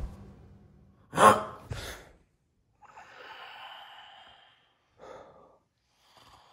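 A person breathing heavily in sleep: a sharp gasp-like intake about a second in, then a long sighing breath and a shorter breath near the end.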